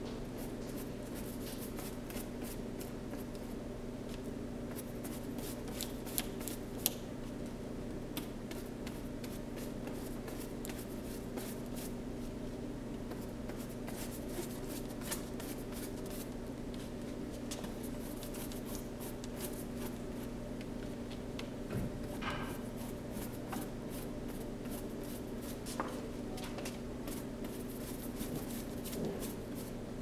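Flat bristle paintbrush stroking wet paint across a cardboard board: short scratchy swishes that come in quick runs, over a steady low hum.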